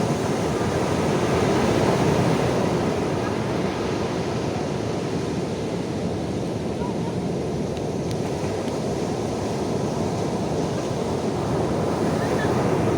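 Surf washing onto a beach, a steady rush of waves with wind on the microphone, swelling a little about two seconds in and again near the end.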